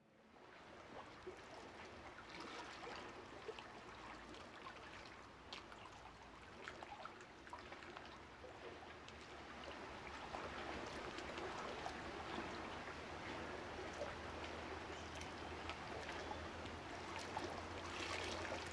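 Faint running, trickling water: a steady rush with many small drips and splashes, slowly growing louder.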